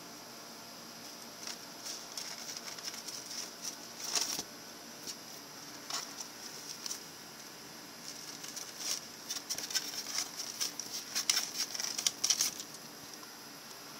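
A hamster scrabbling through styrofoam packing and cardboard inside a box: irregular light scratches and taps from its claws, coming thick and loud for the last few seconds before it squeezes free.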